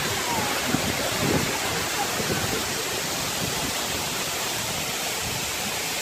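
Steady rush of a tall waterfall, with faint voices in the first couple of seconds.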